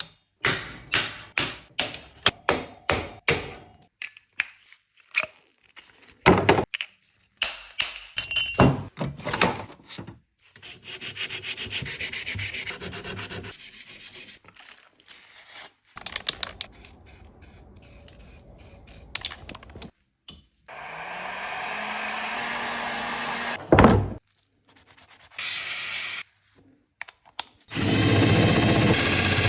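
Cut-together workshop sounds from BMX cranks being stripped and refinished. Quick hand-sanding strokes come first, then several stretches of steady hissing noise and a sharp knock, each cut off suddenly.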